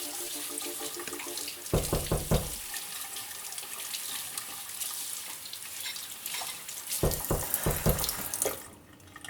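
Tap water running into a sink, a steady hiss that shuts off near the end. Two runs of low knocks cut across it, a few strokes about two seconds in and another few near the end.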